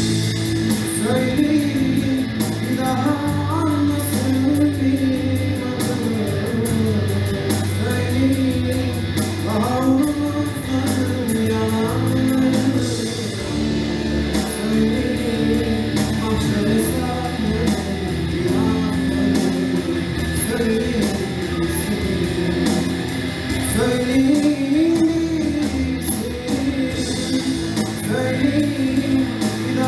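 Live school band playing a rock-style song: a wavering melody line over sustained low notes, guitar and a steady drum beat.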